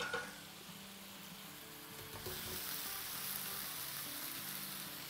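Frying sizzle in a hot pan of chili-garlic and soy sauce, which swells about two seconds in as cooked chicken pieces are tipped in from a stainless steel pan.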